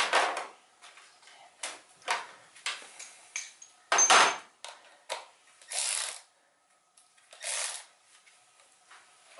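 Hand tools and metal parts clanking and knocking as they are worked on in a truck's engine bay, the loudest knock about four seconds in, with two short rasping sounds near six and seven and a half seconds.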